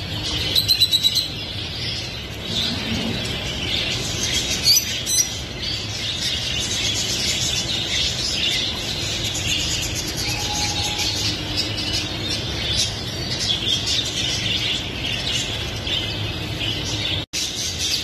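Many caged songbirds chirping and twittering at once in a dense, unbroken chorus, with quick bursts of rapid notes about half a second and five seconds in.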